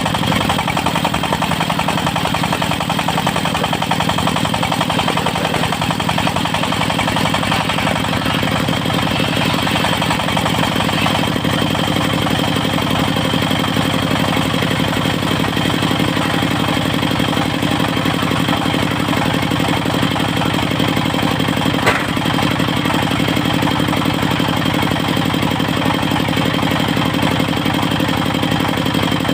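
Engine of a locally built mobile circular sawmill running steadily, with a steady high whine over it. A single sharp knock comes about three quarters of the way through.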